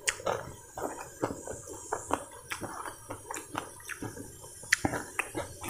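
A person chewing crunchy food: irregular crunches and wet mouth clicks, several a second.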